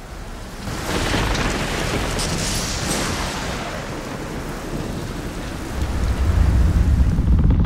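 A rushing, rain-like noise with a deep rumble like rolling thunder. It swells about a second in and grows heavier in the low end near the end.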